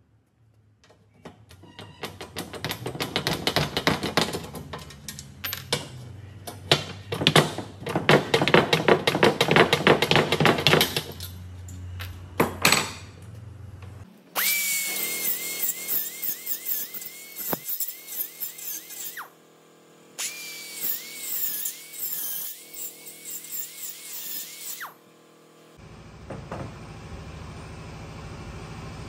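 Angle grinder cutting slots into aluminium gutter channel. It begins with a long stretch of rough, irregular grinding. Then come two bursts, each of which spins up to a high whine that dips again and again as the disc bites into the metal and then winds down.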